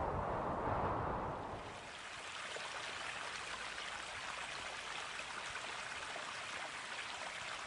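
Steady hiss of running water, a stream ambience with no music. For the first two seconds or so it is mixed with a lower rumbling noise that then fades out.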